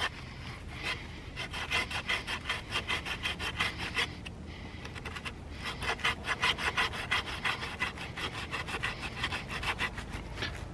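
Small folding pocket saw cutting through a dead branch in quick back-and-forth strokes of the blade's teeth rasping on wood, with a brief pause about four seconds in.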